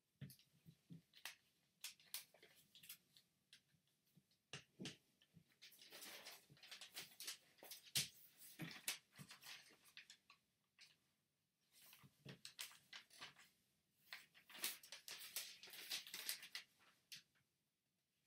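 Faint handling of a large sheet of origami paper as it is folded and creased by hand: soft rustling and sliding with scattered small taps and crinkles. Two longer stretches of rubbing, around the middle and again near the end, as folds are pressed flat.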